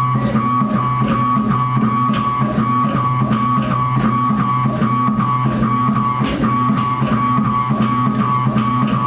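Background music with guitar, bass and a steady rock drum beat.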